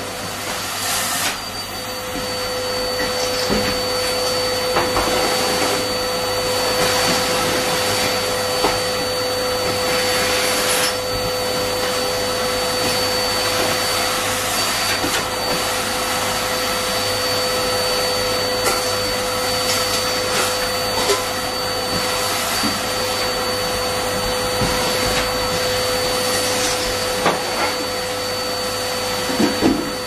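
Numatic Hetty cylinder vacuum cleaner running steadily, its motor holding one steady whine over the rush of air, sucking through the hose and bare wand along the floor. A few small knocks as the wand touches the floor and kitchen units.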